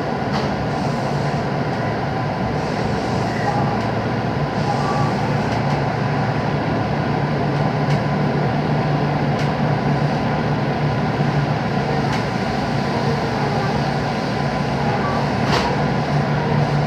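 Inside a JR West 221-series electric train carriage: steady running noise with a low motor hum and a faint steady tone, and a few sharp clicks, two of them near the end.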